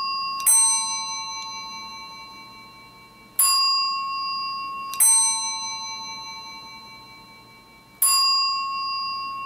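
Western Electric F1A external telephone ringer on its chime setting, sounding two-tone ding-dong chimes: a higher note, then a lower one, each ringing out and fading. The pairs repeat every few seconds with the ringing cycle.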